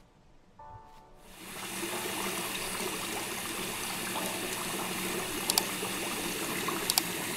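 Water running from a tap into a sink full of water, starting about a second in and then steady. Two sharp clicks come later, one at about five and a half seconds and one at about seven.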